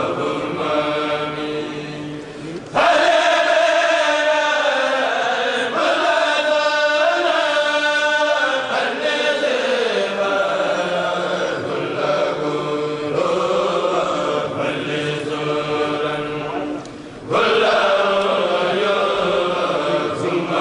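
A kourel of men chanting a Mouride khassida together, unaccompanied, into microphones. The chant grows suddenly louder about three seconds in and again near the end.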